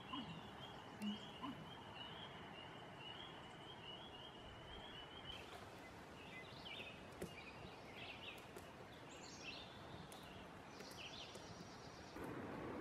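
Faint evening wildlife chorus: a steady pulsing trill with a few short low croaks in the first second and a half. About five seconds in the trill stops and scattered bird chirps follow.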